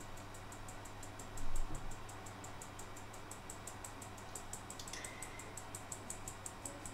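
Flour being sifted through a metal mesh sieve, shaken steadily with a soft rhythmic rasp of about six strokes a second. A dull thump about one and a half seconds in, and a short high squeak near the end.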